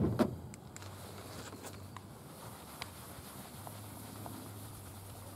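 Cloth pad rubbing headlight restorer over a plastic headlight lens, a faint steady scrubbing with a few light ticks. Two short, louder sounds at the very start fall in pitch, and a low hum runs underneath.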